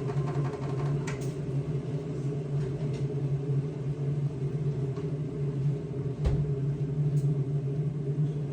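A steady low mechanical hum, like a small motor or fan running, with a few light clicks and a short knock about six seconds in.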